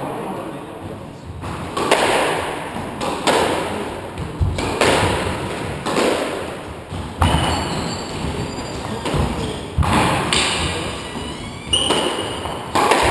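Squash rally: the rubber ball cracks off the rackets and the court walls in sharp, echoing hits about every second to second and a half, with shoes squeaking on the wooden floor.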